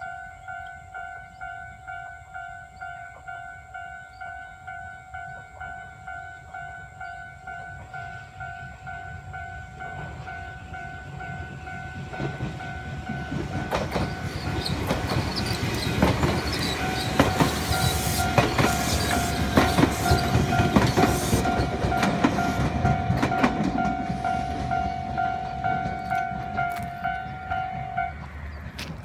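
Japanese level crossing warning bell ringing in two tones at about two strikes a second, while a Nagano Electric Railway 1000 series Yukemuri limited express passes, its wheels clacking over the rail joints, loudest midway. The bell stops near the end.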